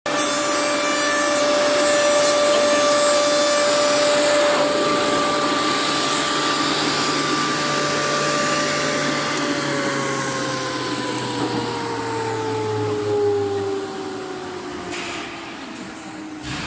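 WPC door edge milling machine's cutter spindle running with a steady high whine over a rushing noise. From about halfway the whine falls steadily in pitch as the spindle winds down.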